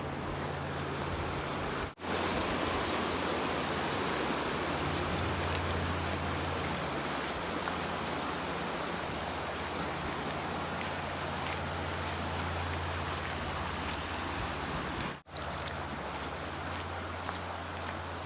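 Steady rushing of flowing water, an even hiss with no distinct events, broken twice by brief dropouts.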